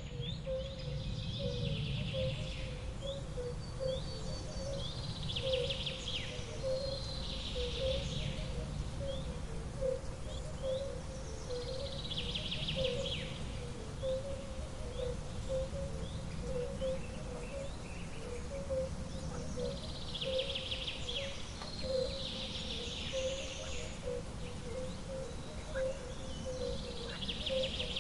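Outdoor nature ambience of birds singing, with a burst of song every few seconds and a steady pulsing low note under a low background rumble.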